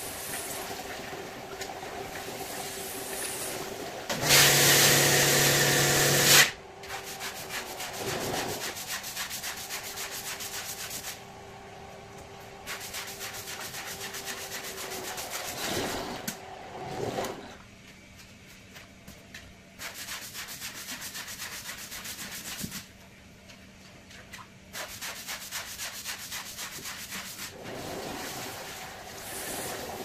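A rug being brushed, heard as stretches of rapid strokes broken by abrupt cuts. About four seconds in comes a louder burst of about two seconds: a hiss with a low hum under it.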